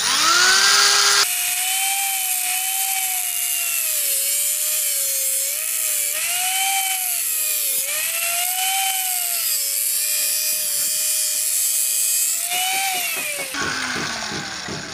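Electric angle grinder spinning up with a rising whine, then its disc grinding through the steel body of a spark plug clamped in a vise. The motor pitch dips and recovers repeatedly as the disc bites, and near the end the grinder winds down with a falling whine.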